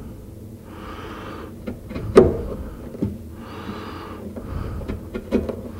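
A chisel paring wood by hand, in a few short scraping strokes of about a second each, with a sharp tap of the tool about two seconds in and a few lighter ticks.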